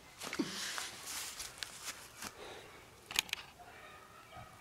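Handling noise from a single-shot break-action shotgun: rustling, a few faint clicks, and one sharp metallic click about three seconds in as the action is broken open. No shot is fired.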